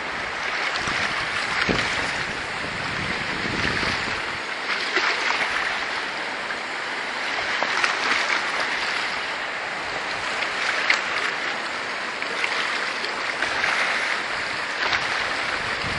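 Fast-flowing river water rushing past a rocky bank: a steady, even rush that swells and eases slowly, with a few faint ticks over it.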